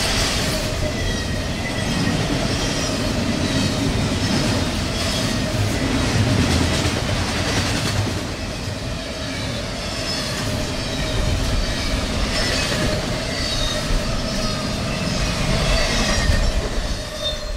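Double-stack intermodal freight train rolling past on well cars: a steady low rumble of steel wheels on rail, with repeated short, high-pitched wheel squeals.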